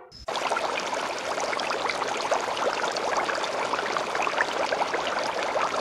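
Steady rush of running water broken up by many small splashes and trickles, starting about a third of a second in.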